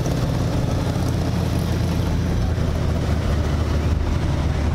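A car engine idling: a steady, low rumble that does not change.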